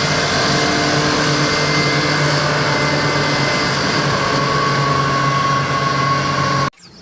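Electric pressure washer running steadily and spraying water to clean mud off a toy; it cuts off abruptly near the end.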